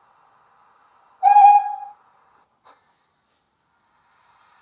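Loksound 5 sound decoder in a Bachmann 9F model steam locomotive, playing one short steam whistle blast, under a second long, through its megabass speaker. A faint hiss sits under it beforehand, and a small click follows soon after.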